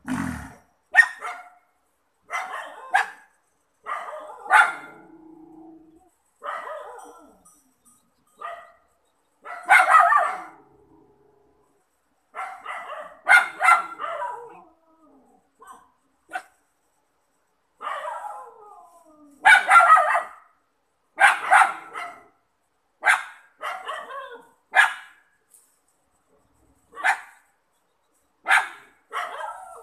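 Dogs barking again and again at night, in runs of short, sharp barks with pauses of a second or two between runs.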